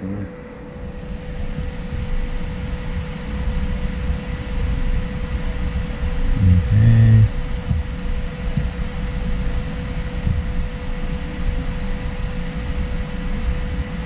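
Steady fan hum with a constant tone over a low rumble. A short, low pitched sound about seven seconds in.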